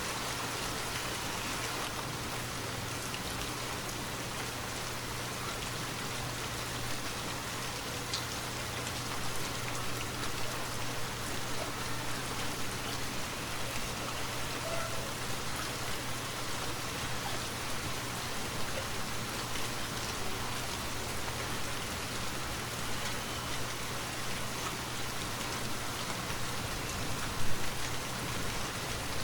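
Steady rainfall with scattered louder drops, an even rushing hiss. One sharp tap stands out near the end.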